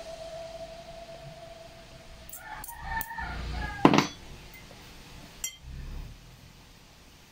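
A metal fork clinking against a ceramic plate while tossing a fern salad: a few light clicks and one sharper clink about four seconds in. A held music note fades out at the start.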